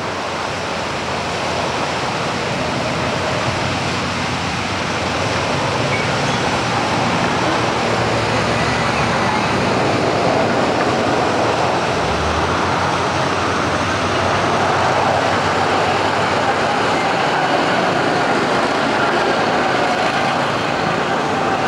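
Small go-kart engines running as karts lap the track: a steady drone that grows slightly louder over the first several seconds.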